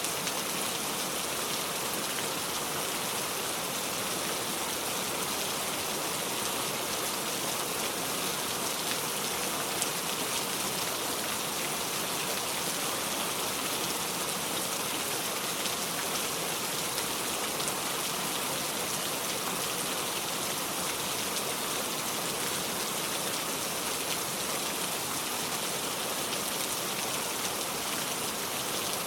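Steady rain falling, an even hiss with fine pattering of drops.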